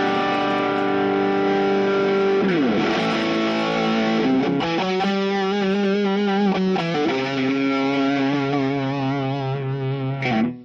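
Electric guitar played through a Vox AC30 valve amp turned up to about halfway, overdriven into a rich, throaty distortion. Sustained chords slide down about two and a half seconds in, waver with vibrato in the middle, change again about seven seconds in, and cut off suddenly near the end.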